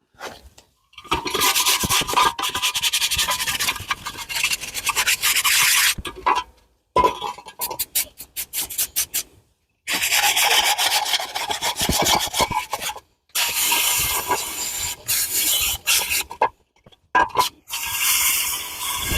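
Repeated hand scraping strokes, in runs of a few seconds, with sudden gaps where the sound cuts out completely.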